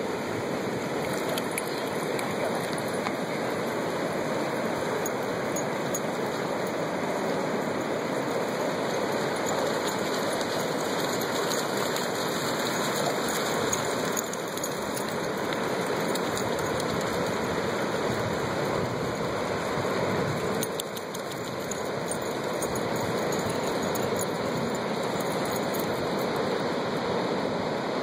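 Ocean surf breaking and washing up the beach as a steady rushing noise, dipping briefly about twenty seconds in.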